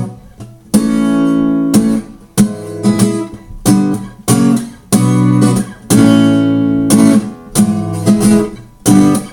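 Guitar strumming the fast chorus walk-down, B minor, A, E with G sharp in the bass, G, F sharp 7: a run of sharp strums, each chord ringing briefly before the next.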